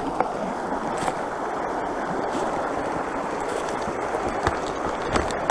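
Creek water rushing over rocks in a shallow riffle, a steady wash, with a few crunching footsteps on dry leaves and twigs.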